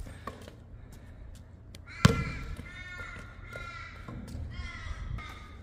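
A basketball bouncing once hard on the outdoor court about two seconds in, among fainter taps. Through the second half a bird calls repeatedly in the background.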